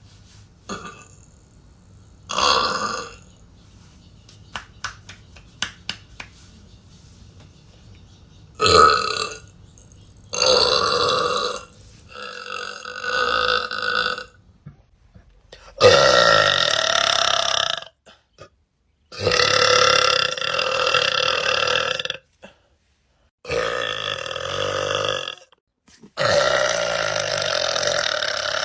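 A woman burping repeatedly: about eight huge, drawn-out burps, the later ones each lasting two to three seconds, with a few faint clicks between the first two.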